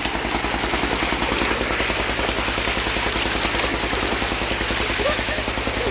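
Water gushing steadily from a pipe outlet into a tank, with an engine running evenly underneath in a fast, regular low chug.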